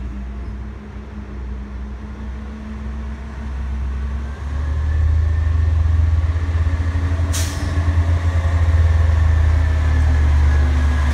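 Automated side-loader garbage truck's engine running as it drives up toward the microphone, getting louder about four and a half seconds in. About seven seconds in there is one short, sharp hiss of its air brakes.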